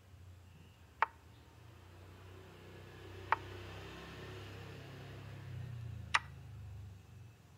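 Chess app move sound effects: three sharp, short clicks as pieces are played on a digital board, over a faint low hum.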